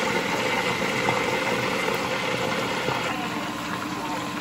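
Chicken wings deep-frying in a pot of hot oil: a steady, dense sizzle that gets a little quieter about three seconds in.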